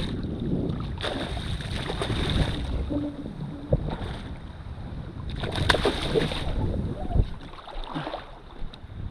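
Wind buffeting the microphone over water sloshing and splashing around a kayak, swelling twice, with a few sharp knocks against the hull.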